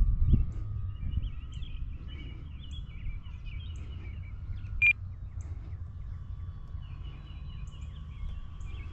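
Small birds chirping over a low wind rumble, with a faint steady whine in the background and a single short beep about five seconds in.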